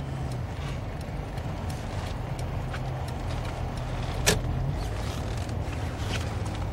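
Car engine running at low speed, heard from inside the cabin as the car rolls slowly across a car park, a steady low hum. A single sharp click sounds about four seconds in.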